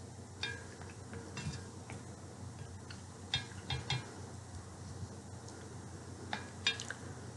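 A spoon clinking against a bowl: several light, separate clinks spread out over a few seconds.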